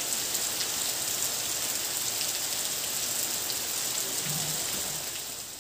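Steady rain falling on a muddy dirt yard, an even hiss of drops that gets a little quieter near the end.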